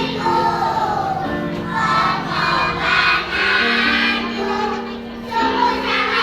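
Kindergarten children's choir singing together over a musical accompaniment that holds steady notes beneath the voices.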